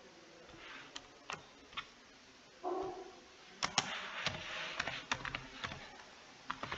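Computer keyboard being typed slowly: scattered single key clicks, a few to a second, with gaps between them. A short hum-like pitched sound comes in about two and a half seconds in.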